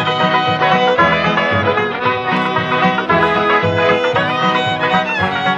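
Background music with a steady beat: an upbeat bluegrass-style tune with banjo and fiddle.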